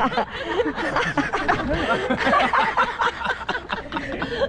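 Several people laughing and snickering over one another, with chattering voices.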